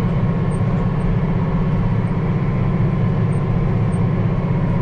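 Case IH 7140 tractor's diesel engine running steadily under load, pulling a disc and cultipacker through the field.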